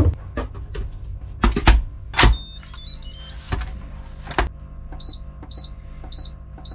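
A few knocks and clunks, then a short electronic jingle of stepped high notes, then four short high beeps about half a second apart from an Instant Pot electric pressure cooker's control panel as its buttons are pressed to set it.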